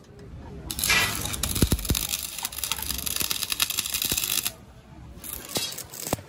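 Electric arc welding on a steel crane boom: the arc crackles and sizzles steadily from about a second in, stops a little past the middle, then crackles again more briefly near the end.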